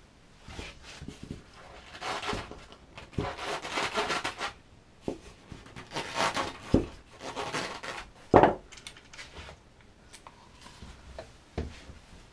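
Handling noise as a rotary tool with a router base and its cord are moved about and set against a surfboard: scattered knocks, rubs and scrapes, the loudest a sharp knock about eight seconds in. The tool itself is not running.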